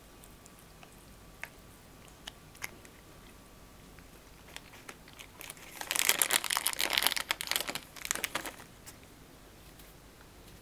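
A cat crunching a dry treat taken from the owner's fingers: a few single crunches at first, then about three seconds of loud, dense crunching close up, starting near the middle.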